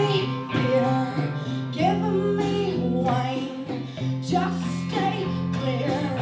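Music: a woman singing over guitar, with sustained notes that change pitch every second or so.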